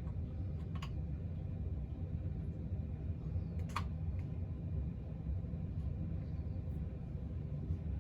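A few light plastic clicks as the Shark Navigator Swivel's dirt cup and cyclone lid are pushed and fitted by hand, over a steady low hum.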